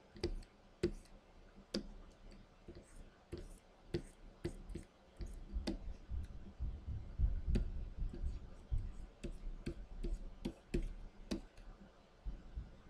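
Irregular light clicks and taps, one or two a second, from working a Wacom Cintiq pen display while painting digitally, over a faint low rumble.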